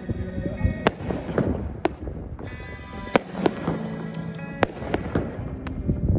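200-gram multi-shot fireworks cake firing: a rapid, uneven series of sharp bangs and pops as shots launch and stars burst, with music playing underneath.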